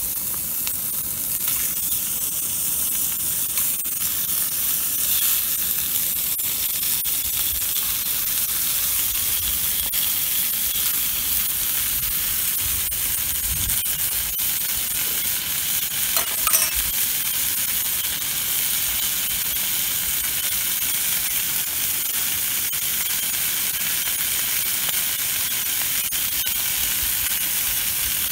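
Bacon-wrapped rolls sizzling and frying in a hot cast iron skillet, a steady spitting hiss, with a short knock about halfway through.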